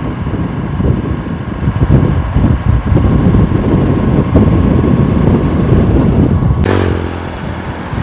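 The rider's own vehicle moving along the road: low engine and road rumble with wind buffeting the microphone. A short falling sweep comes in near the end.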